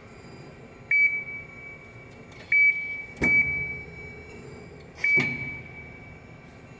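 Amada RG-50 CNC press brake at work: four sharp metallic clanks, each ringing out at one high pitch and fading within about a second.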